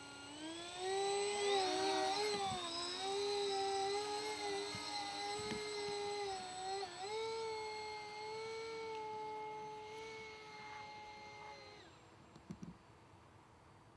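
Electric motors and propellers of a Banana Hobby V-22 Osprey RC tiltrotor model throttling up for a vertical takeoff: a whine that rises in pitch about half a second in, then holds a steady, slightly wavering whine as the model climbs away. The sound cuts off suddenly near the end.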